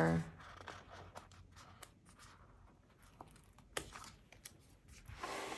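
Faint paper handling as a sticker is peeled from its sheet and pressed onto a journal page: quiet rustling with a few light clicks and taps.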